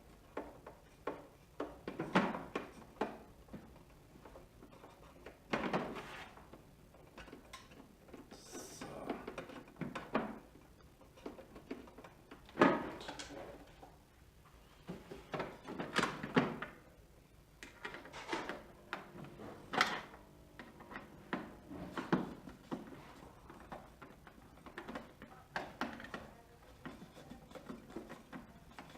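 Screws being driven to fasten the plastic side cap back onto a cutting plotter: irregular clicks, knocks and scrapes of a screwdriver and the plastic housing being handled, the sharpest knock about halfway through.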